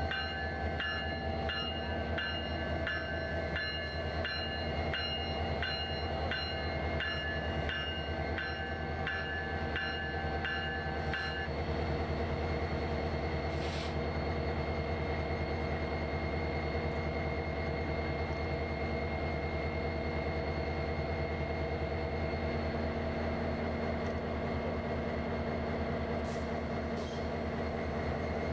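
Diesel locomotive engine, an EMD SD70ACE, running with a steady hum. Its bell rings about twice a second for the first eleven seconds or so, then stops. A brief high hiss comes about fourteen seconds in.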